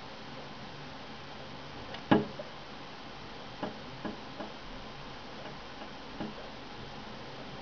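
Male chaffinch knocking at the window: one sharp knock about two seconds in, then four lighter taps spread over the next few seconds.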